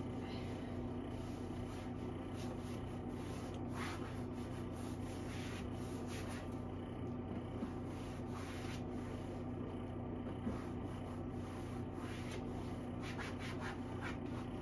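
A cloth wiping and scrubbing the inside of a kitchen drawer as it is washed out: several short rubbing strokes, with a cluster near the end, over a steady low hum.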